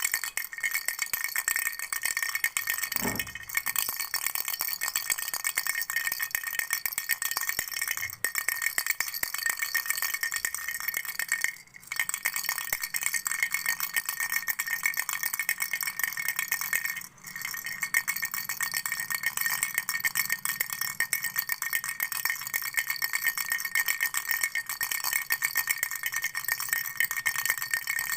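A baby's toy rattle shaken continuously, a dense, high jingling clatter with two brief pauses partway through.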